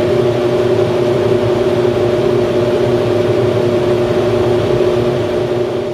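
Hydroelectric turbine-generator unit running, a loud steady machine hum with several held tones over a low rumble.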